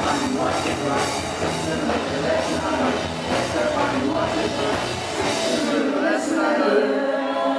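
Rock music with a singing voice over a steady beat.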